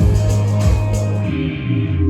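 A band rehearsing: electric guitar and bass over a steady beat, the beat stopping about a second in and leaving the guitar chords ringing.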